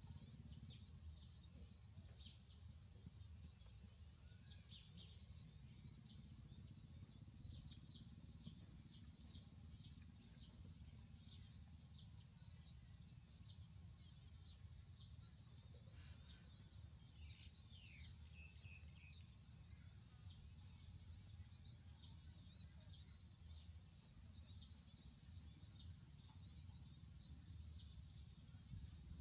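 Faint chirping of small birds: many short, high chirps over a steady low rumble, with a few lower, curving calls near the middle.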